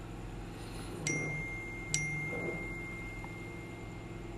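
Two struck chime-like tones a little under a second apart, each a clear bell-like ring. The tone rings on after the second strike and fades near the end.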